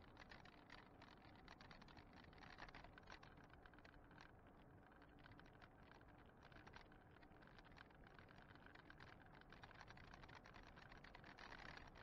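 Faint, fast rattling clicks over a low hiss: road vibration and tyre noise from an e-bike riding on asphalt.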